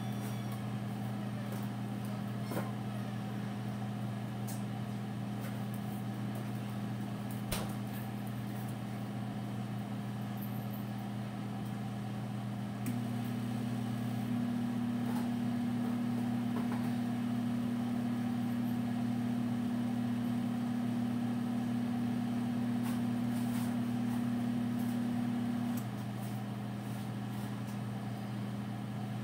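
GE over-the-range microwave oven running on defrost with a steady hum. A louder, higher hum joins about 13 seconds in and stops about 26 seconds in.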